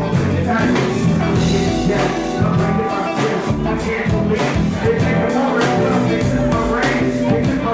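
Live concert music: a band playing a steady beat with sung vocals.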